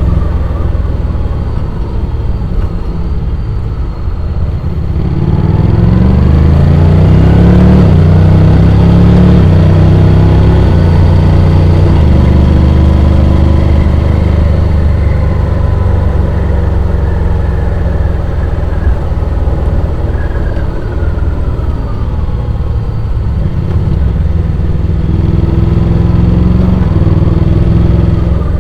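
Honda X-ADV 750's parallel-twin engine running under way, heard onboard. It accelerates with a rising pitch about five seconds in, holds a steady cruise, eases off around twenty seconds in, then picks up again.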